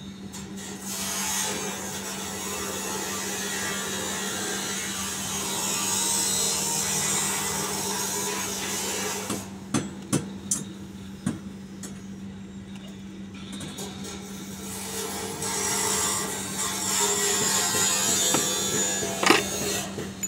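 Workshop noise: a rasping, scraping sound like sawing or filing in two long stretches, over a steady low hum. A few light metal clicks come about halfway through, and one sharper metallic clank near the end.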